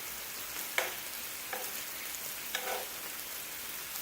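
Thin-sliced lamb sizzling on a grill, a steady hiss, with three short clicks spread through it.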